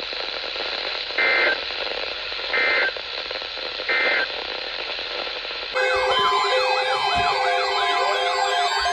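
Three short warbling data bursts of an Emergency Alert System end-of-message code from a NOAA Weather Radio broadcast, about a second and a half apart, over radio hiss. About six seconds in, a warbling siren-like electronic alert tone starts suddenly.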